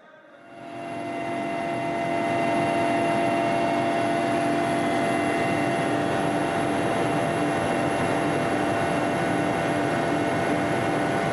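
Aircraft cabin noise: the steady drone of engines and airflow, with a low hum and higher steady whines running through it. It fades up over about the first two seconds, then holds steady.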